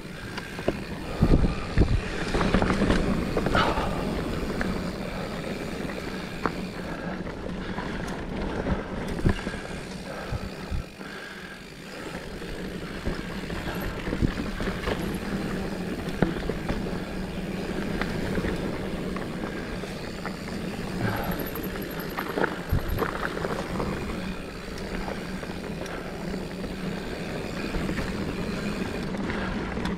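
Mountain bike riding a dirt and rock singletrack: steady tyre noise and rattling of the bike over the ground, with several sharp knocks in the first few seconds as it goes over rocks.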